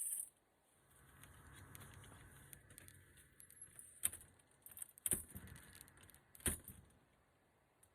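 Small metal hardware being handled: light metallic jingling and a few sharp clicks, over a faint low hum.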